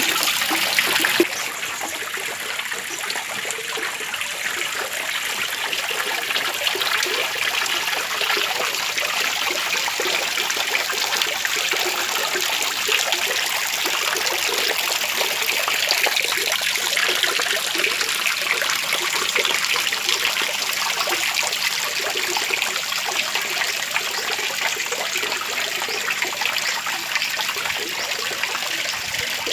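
Water from a small waterfall trickling and gurgling steadily in an even, splashy hiss. It drops a little in level about a second in, then holds steady.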